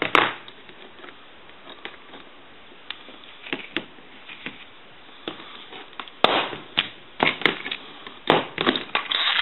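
Scattered sharp clicks, then a denser run of knocks and rattles about two-thirds of the way in, as a payphone handset is worked off its security cable.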